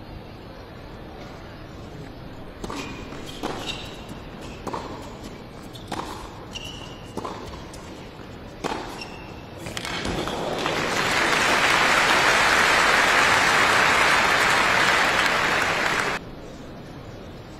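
Tennis rally in an indoor arena: about ten sharp echoing knocks of racquet on ball and ball on court, spaced about a second apart, with a few short shoe squeaks. After about ten seconds the crowd breaks into loud applause, which swells, holds, then cuts off abruptly near the end.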